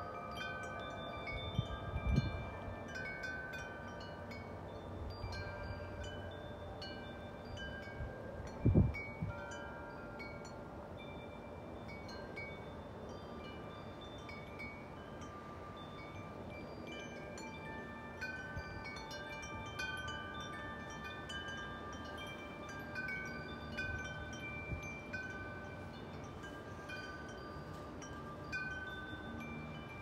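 Tubular metal wind chime ringing irregularly in the wind, several tubes of different pitches struck one after another, their tones overlapping and dying away. Wind buffets the microphone twice, about two seconds in and again near nine seconds, the loudest moments.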